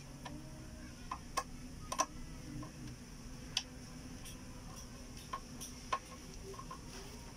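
Irregular small clicks and taps of a screwdriver working on a refrigerator inverter board and its plastic wire connectors, about eight or nine sharp ticks scattered over a faint low hum.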